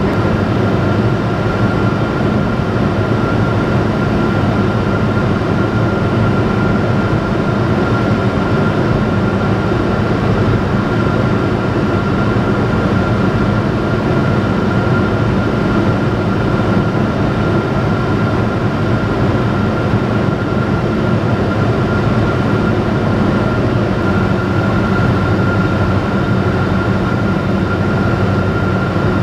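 Steady drone of a Robin DR400's piston engine and propeller in flight, heard from inside the cockpit, with a thin steady high tone running over it.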